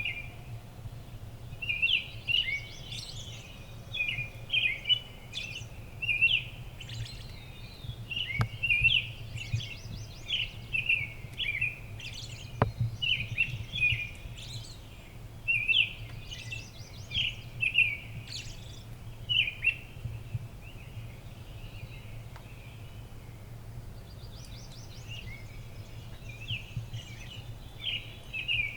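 Small songbirds chirping and chattering, short calls following one another almost without pause, over a steady low hum.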